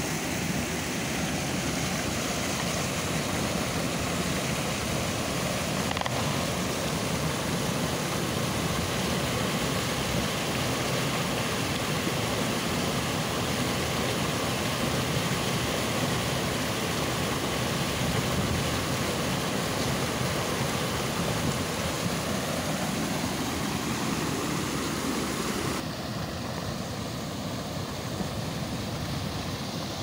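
Mountain stream rushing and splashing down small cascades between boulders, a steady loud rush of water. About four seconds before the end it turns somewhat quieter and softer as the flow eases into a calmer, shallow stretch.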